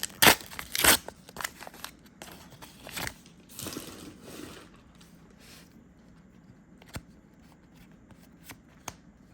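Packaging of a trading-card booster box being torn open and crinkled: two loud rips in the first second, softer crinkling around three to four seconds in, then only a few faint clicks of handling.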